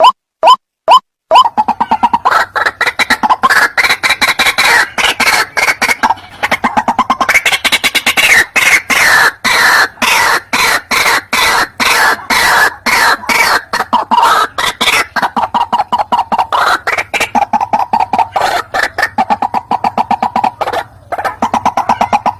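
White-breasted waterhen calling: short, evenly spaced calls about three times a second, then from about a second in a dense, fast run of repeated calls that lasts until near the end.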